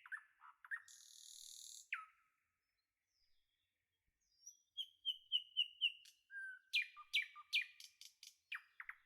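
Birdsong: birds chirping in short, repeated notes, with a short hiss about a second in, a lull of about two seconds, then quick runs of chirps that are loudest near the end.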